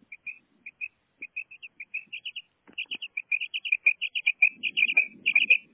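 Female common quail calling: short high chirps, spaced out at first, that quicken about two seconds in into rapid, louder runs of clustered notes.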